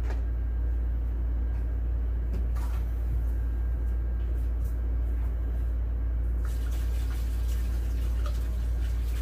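Water pouring from a large plastic jug into the wash tub of a small twin-tub washing machine, starting about two-thirds of the way in, after a few knocks from handling the jug. A steady low hum sits underneath.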